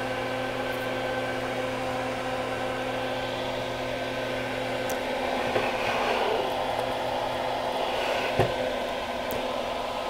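Soldering fume extractor fan running with a steady hum and whir. A deeper hum in it drops out about halfway through, and there are faint handling sounds and a single knock near the end.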